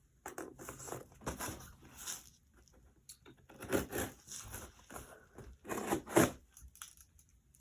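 Packaging being handled and opened: irregular rustling and scratchy tearing strokes, with two louder ones a little past the middle.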